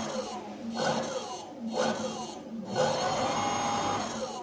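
Small BLDC motor spinning the 3D-printed ducted fan of a model jet engine, a whir with air rushing through it. The sound surges and dips about once a second, its pitch sliding up and down.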